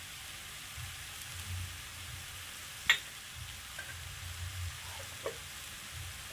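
Grated raw mango sizzling in ghee in a pan, a steady frying hiss. A single sharp click comes about three seconds in, with fainter ticks after it.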